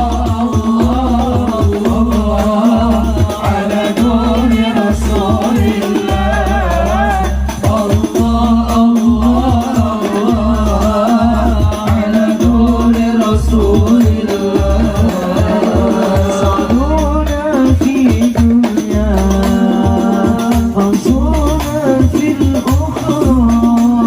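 Islamic devotional song (sholawat) sung by a male lead voice in a wavering, ornamented melody over hadrah frame drums and jingles playing a steady, busy rhythm.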